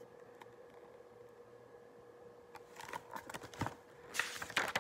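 A picture book being handled and its page turned: about two seconds of near silence with a faint hum, then a few paper rustles and soft knocks, thickest near the end.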